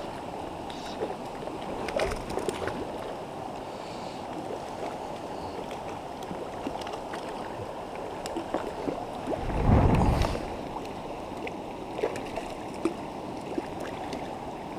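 Shallow, rocky river flowing steadily in a riffle around a wader's legs, a constant rush of water. Scattered small clicks come through it, and a louder low rumble lasts about a second roughly two-thirds of the way through.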